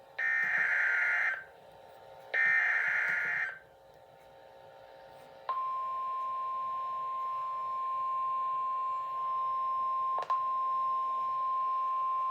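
Emergency Alert System SAME header: two buzzing digital data bursts, about a second each with a second's gap, end the three-burst header. Then, about five and a half seconds in, a single steady high alert tone starts, the 1050 Hz warning alarm tone of the NOAA Weather Radio relay, with one brief click in it near the end.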